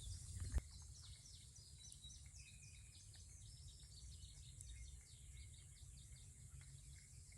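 Faint outdoor background of birds chirping, many short falling high calls in quick succession, with a soft knock just after the start.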